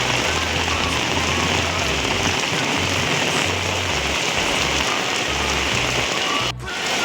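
Heavy rain falling in a steady hiss, briefly cutting out about six and a half seconds in.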